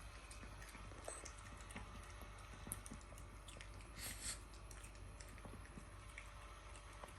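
Chihuahua eating cottage cheese: faint, scattered smacking and licking clicks, with one brief louder noise about four seconds in.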